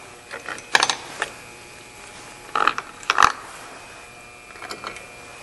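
Metal bolts clinking and rattling as they are set loosely by hand into the new water pump's mounting holes: a few short clicks about a second in, a louder pair around three seconds in, and a faint one near the end.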